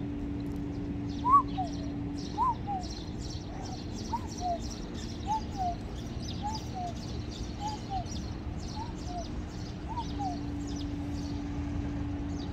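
A cuckoo calling a two-note falling 'cu-koo', about nine times at roughly one call a second, then stopping near the end. Insects chirp faintly and fast in the background over a steady low hum.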